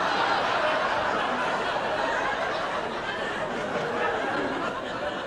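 Studio audience laughing together, a sustained wave of laughter that eases off slightly toward the end.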